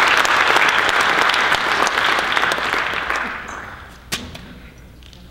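Audience applauding, strong at first and dying away over the next few seconds. A single sharp click sounds about four seconds in.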